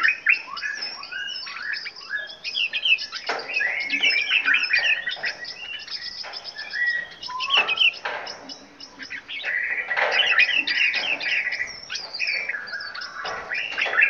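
Several small caged songbirds chirping and singing at once: a dense, overlapping chatter of short high calls and trills that never stops.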